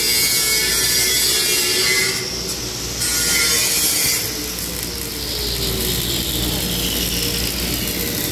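Angle grinder grinding steel, pausing briefly about two seconds in and starting again, then switched off a little after four seconds in, its whine falling as the disc spins down. Electric welding arc crackling and hissing underneath.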